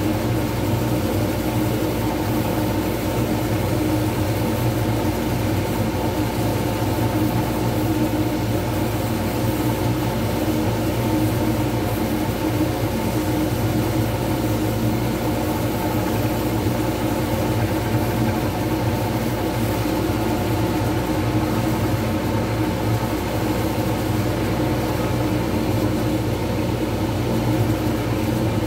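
Wood lathe running at steady speed, a constant machine hum with several fixed tones, as a resin pen blank is sanded and wiped on the spinning mandrel.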